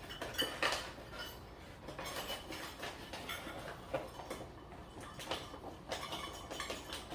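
A measuring cup scooping and scraping through flour, with scattered light clinks and knocks of the cup against the container.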